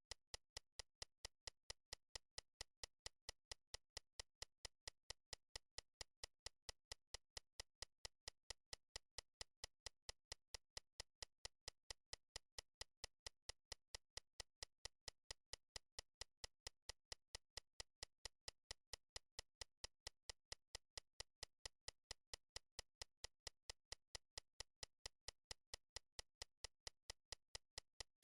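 Near silence with faint, sharp clicks repeating evenly at about three a second.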